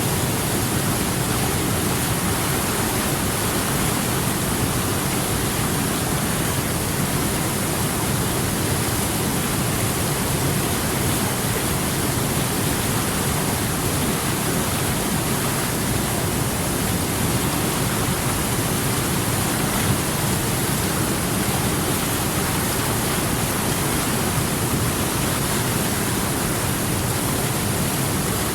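River water rushing steadily, an even full hiss with no breaks.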